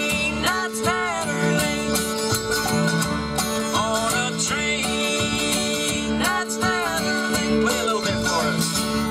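Bluegrass band playing an instrumental: banjo and guitar picking over an upright bass, with the fiddle playing swooping slides that rise and fall several times.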